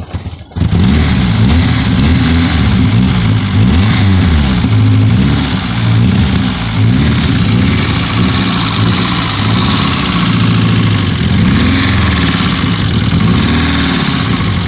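Nissan 240SX engine running on its first start after sitting nine years, its pitch rising and falling again and again as the throttle is blipped to keep it alive.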